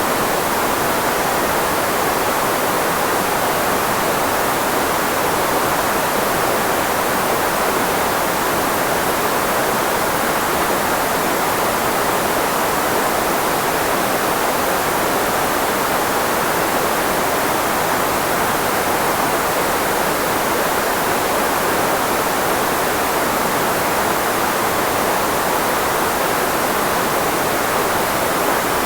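Steady filtered white noise, shaped to mask the frequencies of the human voice: an even hiss strongest in the mid range, with no change in level.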